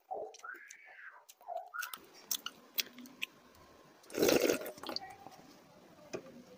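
Close-up mouth sounds of eating by hand: chewing with wet clicks and smacks. About four seconds in, a loud slurp of the soaked rice water drunk straight from a steel bowl.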